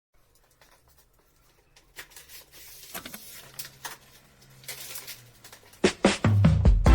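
Scattered light taps and rustling handling noise that grows louder, then a few heavy thumps, with music starting at the very end.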